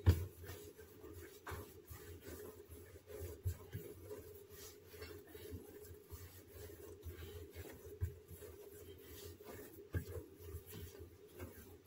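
Hands kneading a soft yeast dough on a countertop: soft rubbing and pressing, with a few dull thumps as the dough is pushed and turned, the strongest right at the start.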